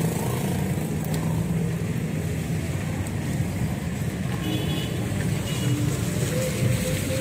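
Steady road-traffic noise with a low rumble.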